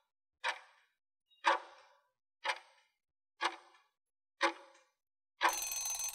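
Clock-tick sound effect of a quiz countdown timer, ticking once a second five times, then a ringing sound lasting under a second as the countdown runs out.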